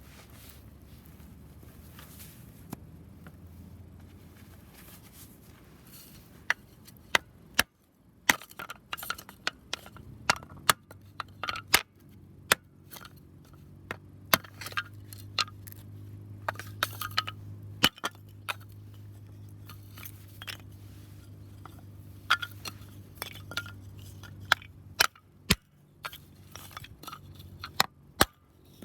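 Wood fire burning in a homemade tower-type fire pit, crackling with sharp, irregular pops from about six seconds in, over a low steady rumble.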